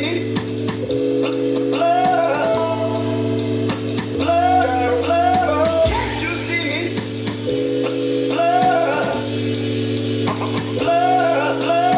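Live rock band playing keyboards, electric guitar and drum kit. Sustained chords change every second or two under steady drum and cymbal hits, and a short melodic phrase recurs every few seconds.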